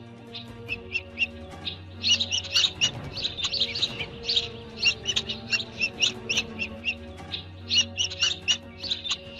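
Small birds chirping in quick, repeated high notes, over soft background music with long held low notes.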